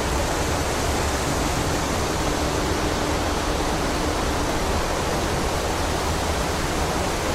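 Strong wind blowing steadily through forest trees: an even, unbroken rushing with no gusts standing out.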